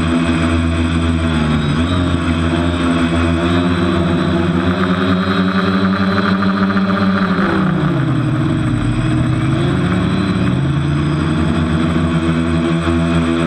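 TBS Discovery quadcopter's electric motors and propellers whining, heard from its onboard camera. The pitch holds steady, drops about eight seconds in as the throttle comes off, climbs back, and dips again near the end. It is flying on a propeller the owner calls dodgy.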